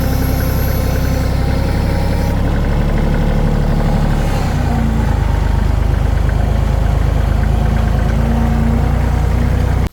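Tractor engine running steadily at idle, a loud, low, even drone.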